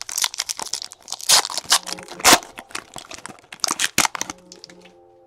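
Trading card pack's foil wrapper being torn open and crinkled: a dense run of sharp crackles, loudest about a second and two seconds in, thinning out near the end.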